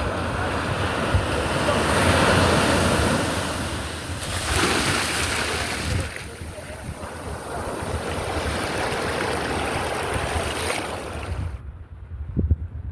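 Ocean surf: waves washing in, swelling a couple of times, with wind buffeting the microphone. The sound drops off sharply near the end.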